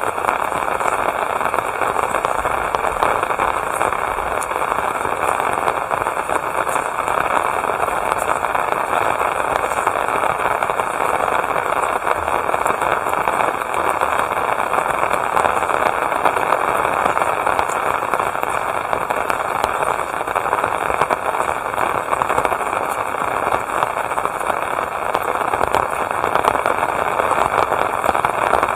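Steady rain falling: a dense, even hiss of many drops with fine ticks of single drops through it.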